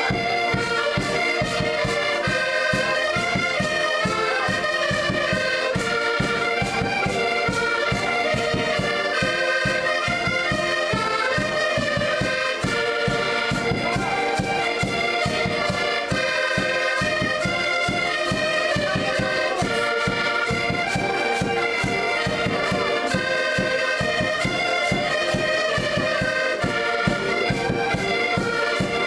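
An ensemble of accordions playing a traditional folk tune together: melody notes over an even, repeating bass-and-chord pulse.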